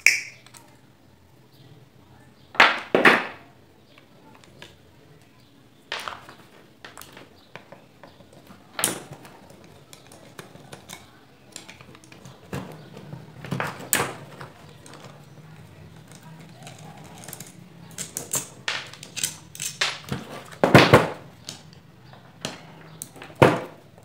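Metal tools and the parts of a fan motor being handled during disassembly: scattered clicks, clinks and knocks, with louder knocks about three seconds in, about twenty-one seconds in and near the end.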